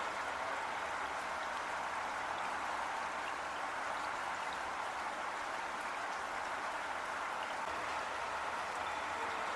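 Heavy rain falling steadily: an even, unbroken hiss of water with no let-up.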